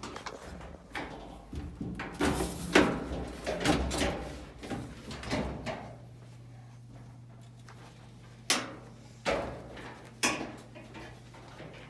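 Irregular knocks, clunks and scrapes of a clothes dryer's sheet-metal cabinet being handled and unscrewed during disassembly, loudest about three seconds in, over a steady low hum.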